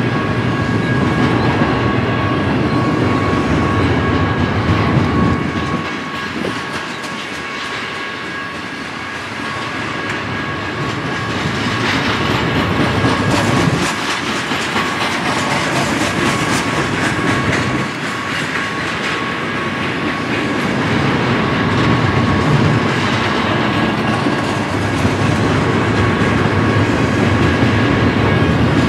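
Double-stack intermodal freight train's well cars rolling past at close range: a steady rumble with wheels clicking over the rails. The level dips and swells as the cars go by.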